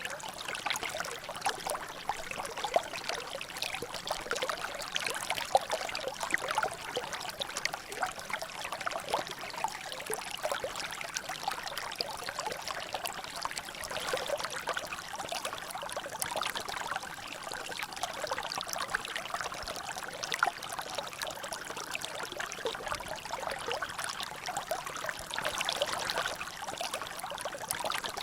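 Water trickling and dripping in a natural drainage: a steady stream of many small drops and splashes, with no pauses.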